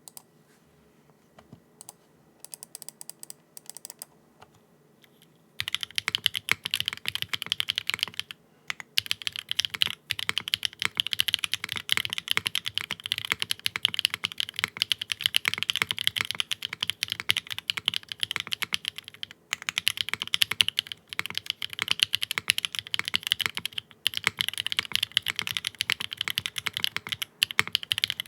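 Typing on a QK60 R2 60% mechanical keyboard with Strawberry Wine switches, an aluminium plate, no foam and a non-flex-cut PCB. A few scattered keystrokes at first, then fast continuous typing from about five seconds in, with a few brief pauses.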